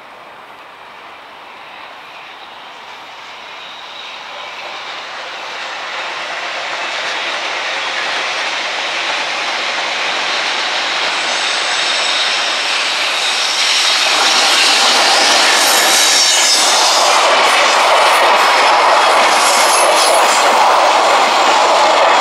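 JR Freight EH500 electric locomotive hauling a container freight train, approaching around a curve and growing steadily louder over about fifteen seconds. Then the wagons' wheels clatter steadily past close by, with a thin high wheel squeal from the curve partway through.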